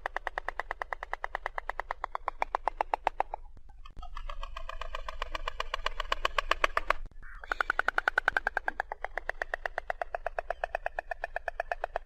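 White stork bill-clattering: a rapid run of wooden-sounding clacks in three bouts, broken by short pauses about three and a half and seven seconds in, the middle bout brighter.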